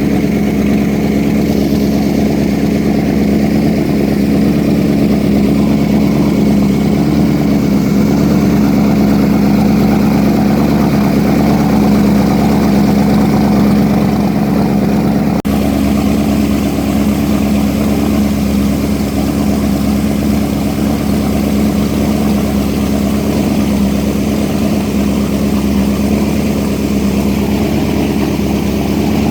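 A boat's motor running steadily under way, a loud, even drone mixed with rushing wind and water. There is one very brief break about halfway through.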